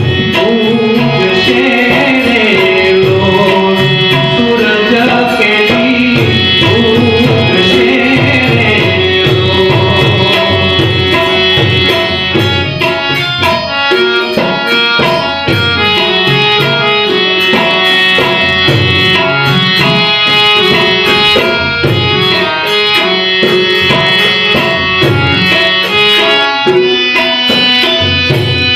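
Tabla and harmonium playing a Gujarati folk song, with a man's voice singing over roughly the first third, then the harmonium and tabla carrying on as an instrumental passage.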